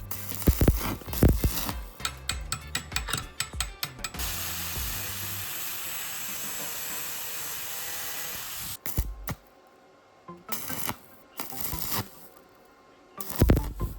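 Metal tools and parts being handled on a workbench: a quick run of clinks and knocks, then a steady hiss for about five seconds that cuts off suddenly, then a few more clicks and one loud knock near the end.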